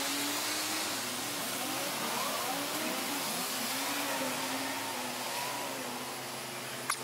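Low-loader truck and street noise played back at four times speed: a steady hissing rush with wavering pitched tones, and one sharp click near the end.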